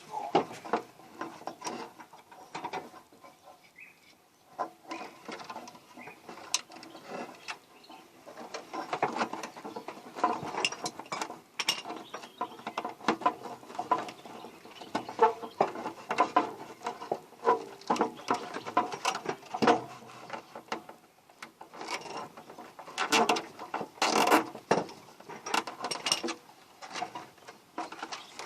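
Irregular mechanical clicking and clattering of metal, many sharp clicks in uneven clusters, louder at times, like hand tools and a ratchet being worked on a car.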